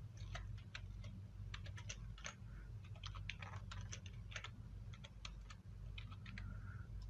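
Computer keyboard typing: a run of irregular key clicks as a short name is typed, over a steady low hum.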